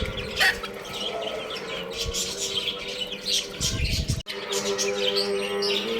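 Many baby chicks chirping over one another in a dense, continuous chorus of short high peeps, with a brief break about four seconds in.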